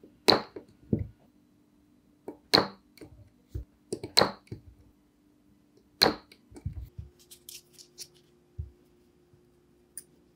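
Spot welder firing through its hand-held electrode pen to weld nickel strip onto 18650 lithium-ion cell terminals: four sharp snaps, one every one and a half to two seconds. Lighter clicks of handling follow as the strip is bent over by hand.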